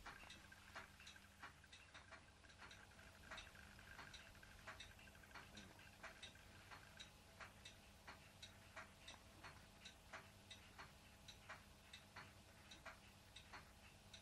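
Faint, evenly spaced ticking, about three ticks every two seconds, over a low steady hum.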